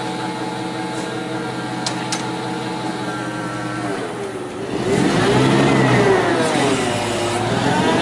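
Propane-fuelled Cat forklift engine idling steadily, then revving up about five seconds in, louder, its pitch rising and falling.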